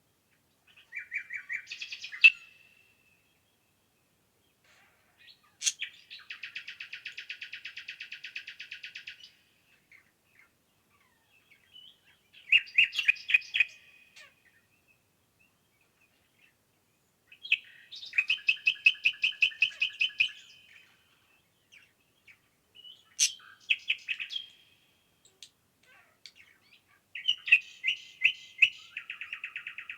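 Songbirds singing: six trilled song phrases of about two to three seconds each, spaced by pauses of a few seconds. Each phrase is a rapid run of repeated high notes, some ending in a sharp higher note.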